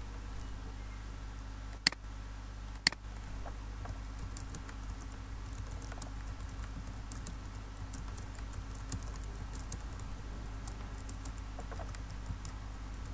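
Typing on a computer keyboard: a quick, irregular run of key clicks. It comes after two sharp, louder clicks about a second apart, over a steady low hum.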